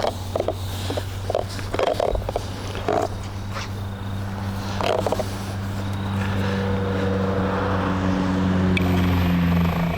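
Cordless battery-powered car buffer running with a flat foam pad, spreading polish on a painted car roof: a steady motor hum with short scuffs and knocks of the pad against the panel in the first half, and a louder hum in the second half.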